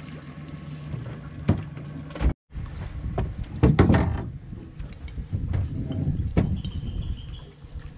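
Crab pot rope being hauled in hand over hand at the bow of an aluminium boat: irregular knocks and clunks against the hull, with one louder thump about four seconds in, over churning water at the bow. A steady low hum runs under the first two seconds.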